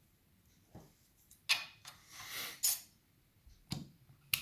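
Small metal parts of a lever lock being handled as its gutted: a few sharp clicks and a short scrape as a spacer and a lever are slid off the post and set down.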